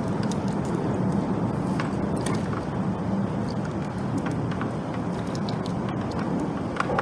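Steady rumble of road traffic on the bridge, with scattered light clicks over it.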